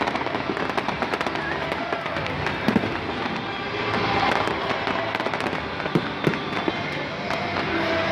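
Aerial fireworks going off overhead: a rapid run of pops, bangs and crackles, the loudest bangs about three and six seconds in, over background music.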